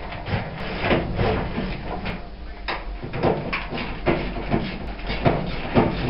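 Screws being undone from the back of a Hotpoint TL61 tumble dryer's metal top panel with a screwdriver: a run of irregular clicks and scrapes.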